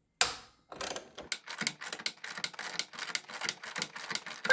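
A short burst of noise, then a ratchet wrench clicking rapidly and steadily, about six to eight clicks a second, as it turns the bolt of a bushing puller pressing out an engine mount bushing.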